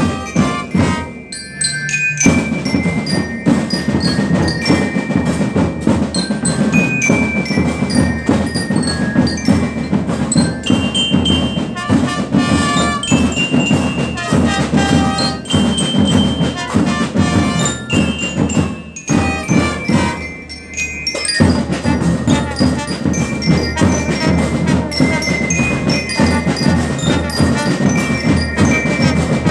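Marching band playing, with bell lyres carrying the melody over marching drums and brass. The music thins briefly about a second in and again around two-thirds of the way through.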